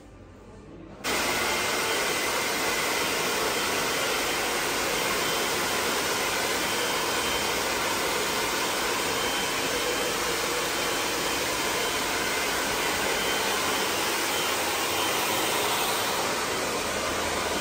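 Hand-held hair dryer blowing on wet hair: a loud, steady rushing hiss that starts suddenly about a second in.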